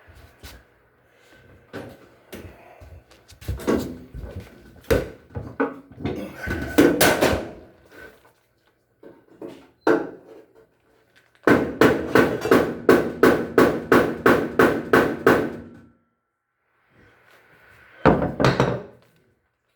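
Knocks and clunks from hands-on repair work on a washing machine: scattered hard knocks at first, then a run of about a dozen evenly spaced blows at roughly three a second, and one more knock near the end.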